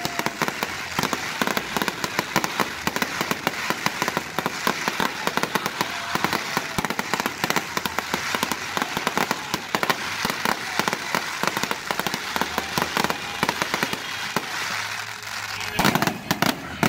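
Aerial fireworks going off in a dense, continuous barrage of sharp cracks and pops, many per second. The barrage thins briefly near the end, then a loud cluster of cracks comes just before it ends.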